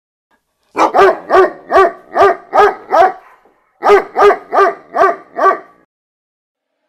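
A dog barking in two runs of short, loud barks, about seven, then a brief pause and about five more.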